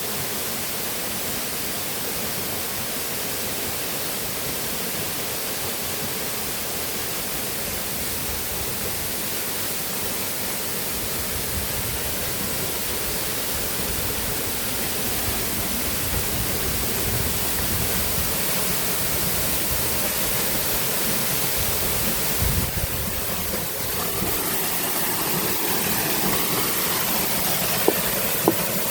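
Steady rushing of river water, slowly getting louder, with a low rumble coming in about halfway through. There are two sharp clicks near the end.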